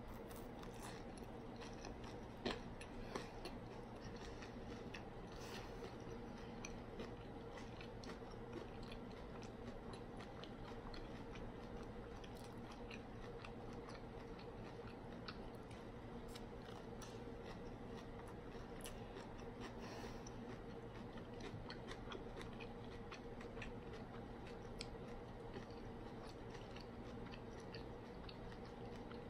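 Quiet chewing of a crispy-shelled beef taco, with scattered small crunches, the loudest about two and a half seconds in, over a steady hum.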